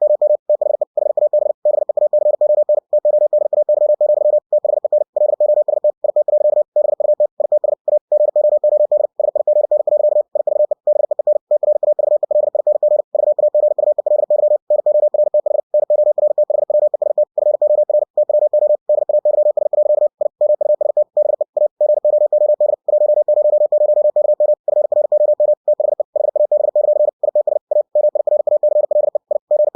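Computer-generated Morse code: a single steady mid-pitched tone keyed on and off at 60 words per minute, a rapid stream of dots and dashes broken by short gaps between words.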